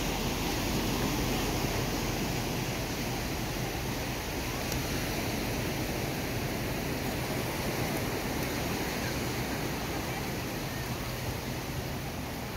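Small surf washing onto a sandy beach: a steady rushing hiss with no distinct breaks.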